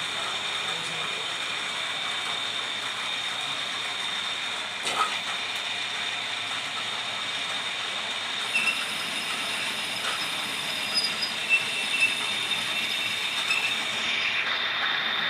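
Metal lathe running: a steady high-pitched whine over mechanical noise, with a few short sharp clicks of metal near the middle and again toward the end.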